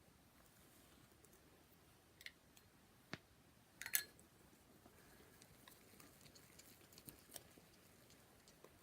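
Faint, scattered clicks and taps of fluffy slime being stirred in a bowl as activator is mixed in, the loudest about four seconds in.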